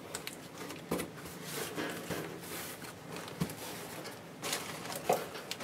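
Knife slitting the packing tape on a cardboard box, then the cardboard flaps being pulled open: soft scrapes, rustles and small clicks, loudest about four and a half seconds in.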